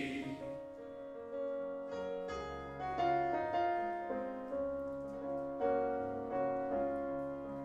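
Piano playing an instrumental interlude between the sung verses of a choral song, a run of single struck notes with lower bass notes joining about two seconds in.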